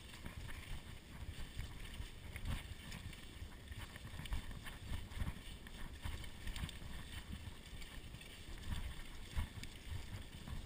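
Mountain bike riding over a bumpy dirt trail: a low, uneven rumble of wind and tyre noise on the camera microphone, with irregular knocks and rattles from the bike.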